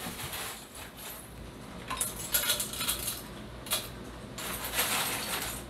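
Ice cubes clinking and rattling as they are scooped by hand from a freezer drawer, in scattered bursts with a few sharper clinks.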